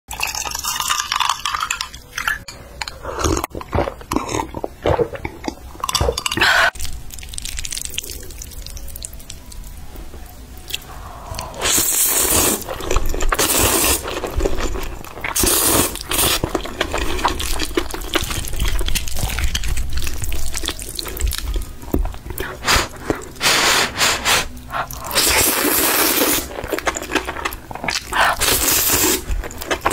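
A person slurping spicy noodles in a red chili sauce: repeated wet slurps, each a long pull lasting about a second, with chewing and smacking between them.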